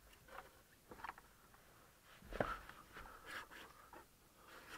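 Wiring harness cables being pulled through behind the car's plastic console and dash trim: faint, irregular rustling and scraping of cable against plastic, with a louder knock about halfway through.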